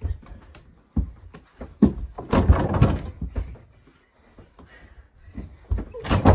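Thuds and bangs on a closet door that carries an over-the-door mini basketball hoop, as the ball and the players hit it, with the door rattling loudest for about a second in the middle and more thuds near the end.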